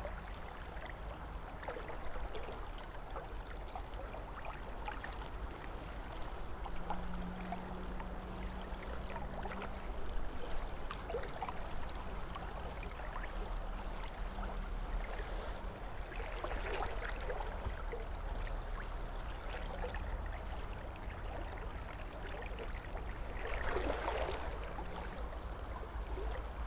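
River water flowing steadily over a shallow, rippled stretch close by: a constant rush of moving water.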